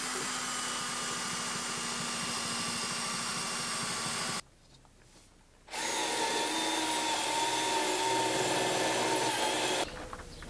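A power tool's motor running steadily for about four seconds and cutting off abruptly, then running again for about four more seconds with a faint steady whine.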